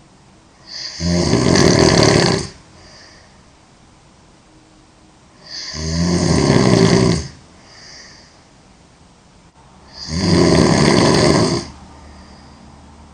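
A girl snoring loudly: three long snores, one about every four and a half seconds, each lasting roughly two seconds with a fluttering rattle. After the first two comes a faint breath.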